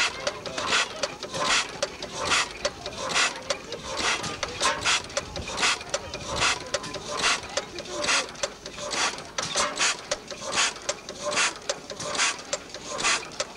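Vintage stationary engine running slowly, a string of sharp mechanical clacks about one to two a second, not quite evenly spaced.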